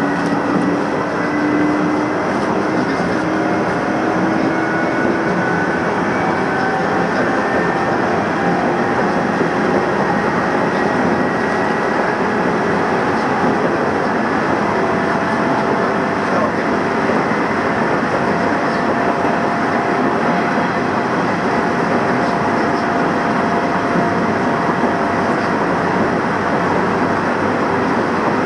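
Nishitetsu electric train running steadily at speed, heard from inside the passenger car: even rolling and running noise with a faint motor whine that drifts slowly in pitch.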